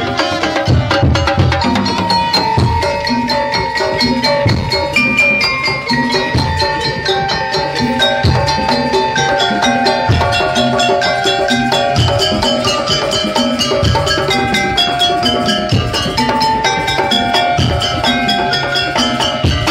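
Percussion-led music: regular drum beats with a high melodic line of held notes over them.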